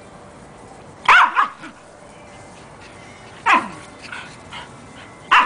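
Small dogs at rough play, one giving short, sharp barks three times: about a second in, midway, and right at the end.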